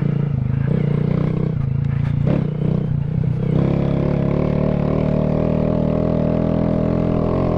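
Honda Grom's 125 cc single-cylinder four-stroke engine under way off-road, running unevenly at lower revs at first, then held steady at higher revs from about halfway in.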